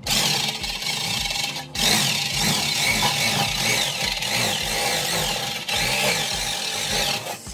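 Electric nibbler cutting through a sheet-steel floor repair panel: a continuous harsh rasping cut that breaks off for a moment about two seconds in, then carries on. Background music with a steady beat plays underneath.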